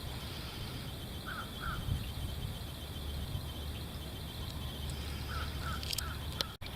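Outdoor background with a bird calling in short notes, twice and then three times, over a steady low rumble of wind and ambient noise.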